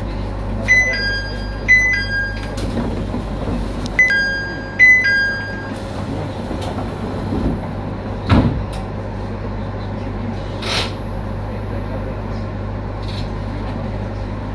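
Electric train's door chime: a two-note falling ding-dong that sounds four times in two pairs, over the steady low hum of the train. A single sharp thud comes about eight seconds in, and a short hiss of air a couple of seconds after it.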